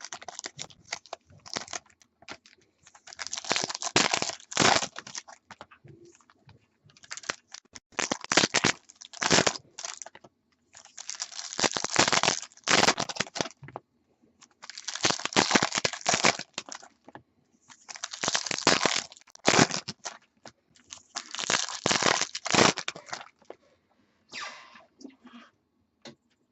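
Foil trading-card pack wrappers being torn open and crinkled, one pack after another: about six bursts of crackling a few seconds apart.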